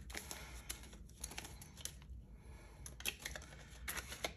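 Paper dollar bills rustling and crinkling as they are folded and slid into a paper cash envelope, with a scattering of short, quiet snaps and flicks.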